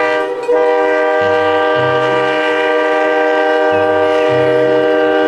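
Train horn blowing: a short blast, then one long steady blast of several tones sounding together, held for about five seconds.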